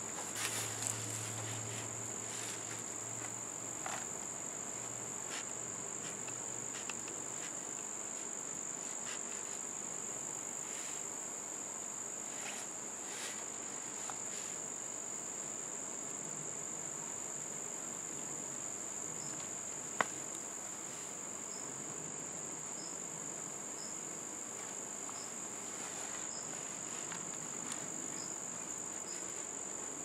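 Steady high-pitched chorus of crickets, with faint scratchy rustles of gloved hands digging through potting soil in a plastic tub and one sharp click about two-thirds of the way through.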